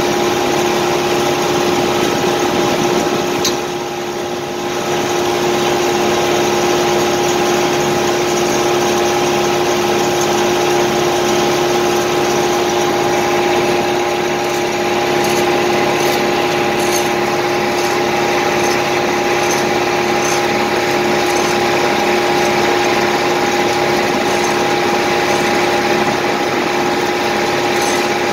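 An engine running steadily at one constant speed, with a steady hum. The sound dips briefly about four seconds in, then carries on unchanged.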